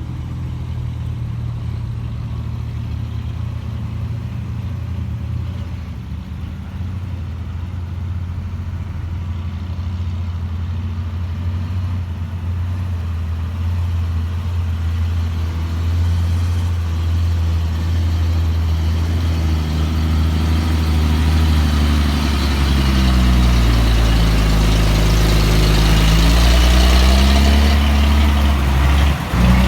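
Heavy diesel engine running steadily. It grows louder through the second half, and near the end its pitch dips and rises again as the revs change.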